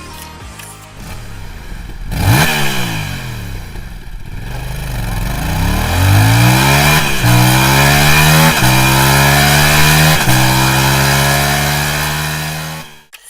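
Parallel-twin sport motorcycle exhaust: a quick rev blip about two seconds in, then hard acceleration up through the gears. There are three upshifts, each a sudden drop in pitch followed by a fresh climb, before the engine holds a high steady note and cuts off just before the end.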